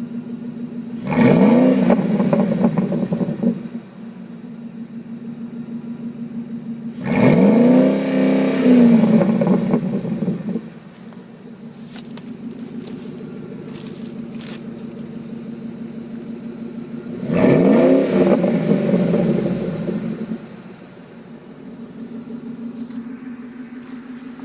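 2005 Ford F-150's 4.6-litre V8 exhaust through a Dynomax Ultraflow muffler, idling and revved three times, each rev rising quickly and dropping back to idle over a few seconds.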